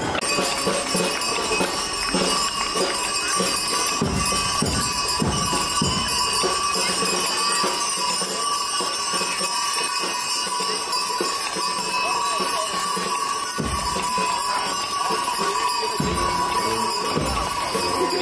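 Music with jingling bells, and the hooves of heavy draught horses pulling a brewery beer wagon clopping on the road now and then.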